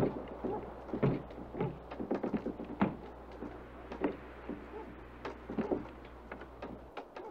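Wooden storm-shelter door and walls knocking and rattling irregularly in the tornado's wind. A low steady hum underneath cuts off near the end.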